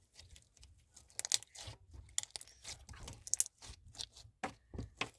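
Crunchy slime being squeezed and worked by hand, giving a quick, irregular run of crackling clicks and pops.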